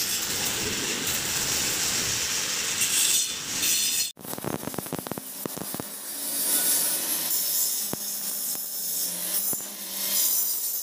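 A continuous scraping, rasping noise for about four seconds that cuts off abruptly, followed by a run of light metallic clicks and knocks as a welded steel-tube frame is handled and moved.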